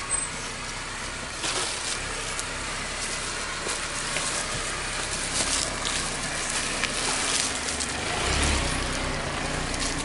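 Lada Niva crawling slowly over a loose dirt mound, its tyres crunching and crackling on soil and stones, with the engine running low underneath and rising about eight seconds in.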